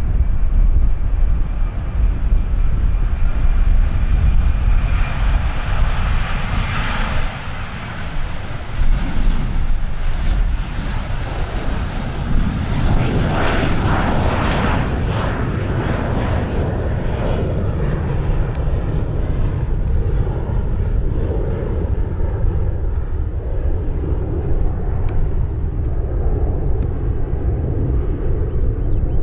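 Jet airliner taking off, its engine noise sustained throughout: the hiss grows brighter and peaks about midway as the aircraft passes, then dulls to a lower rumble as it moves away.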